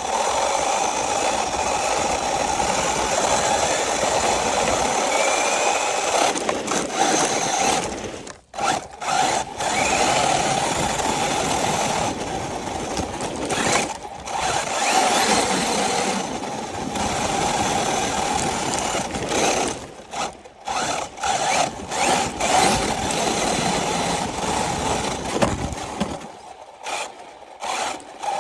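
1/10-scale RC car's motor and drivetrain running with a steady whine, cutting out briefly several times as the throttle is let off and picking up again.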